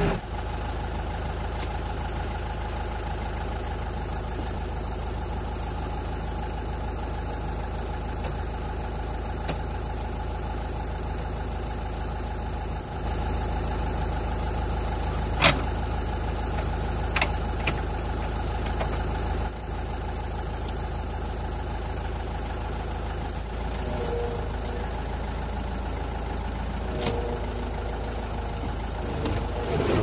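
Gehl skid steer engine idling steadily, with a few sharp metal clicks over it.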